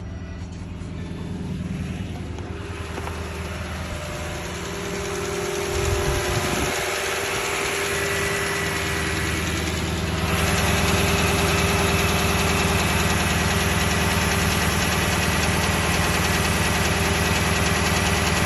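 Toyota 1UR-FE 4.6-litre V8 idling with an engine knock, getting louder in two steps about six and ten seconds in. The knock is more distinct the thinner the oil.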